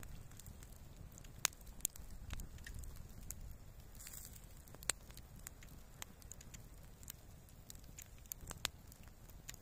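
Irregular sharp crackles and pops, roughly one or two a second, over a faint low rumble.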